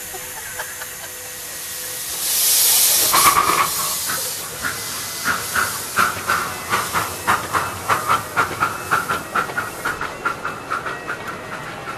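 Miniature live-steam locomotive pulling away: a loud burst of steam hiss, then exhaust chuffs that quicken to about four a second as it gathers speed, fading near the end as the carriages roll past.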